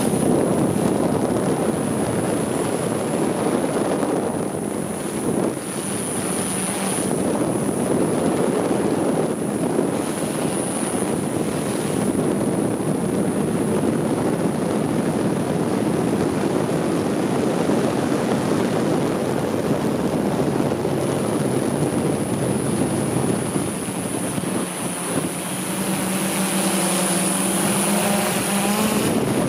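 Helicopter in flight: a steady, loud rush of rotor and engine noise with a thin high whine over it. A steady low tone joins in near the end.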